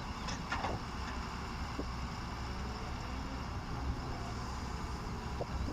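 Diesel engine of heavy earthmoving machinery running steadily, with a few light clicks.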